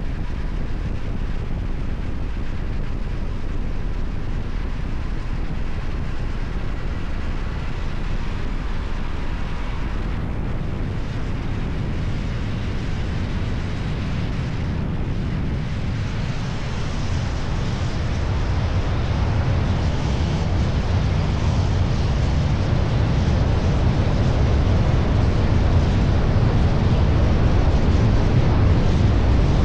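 Kove 625X Adventure motorcycle running on its stock exhaust while riding, with wind buffeting the microphone. It grows louder about two-thirds of the way through.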